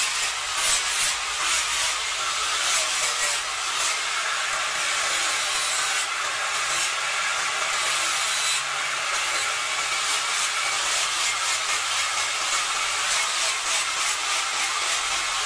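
Angle grinder with an abrasive disc running steadily while it sands and shapes a piece of kemuning wood: a continuous high scraping of the disc on the wood.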